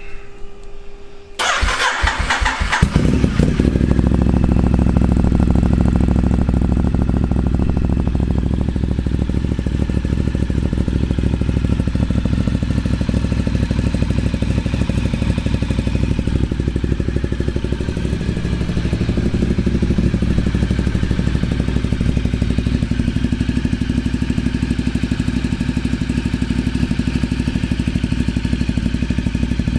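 Ducati Diavel's 1198 cc Testastretta 11° L-twin being started from cold: a steady hum for about the first second and a half, then the starter cranking, and the engine catching about three seconds in and settling into a steady idle through its Termignoni exhaust as it warms up.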